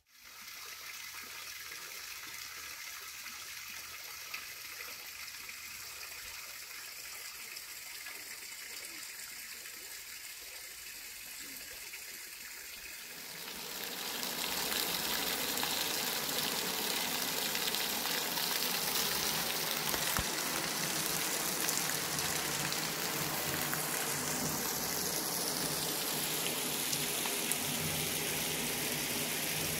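Running spring water splashing from a pipe onto stones and leaf litter, a steady rushing that grows louder and fuller about halfway in.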